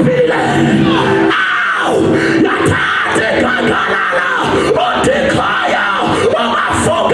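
Church worship music with many voices singing and shouting loudly over the accompaniment.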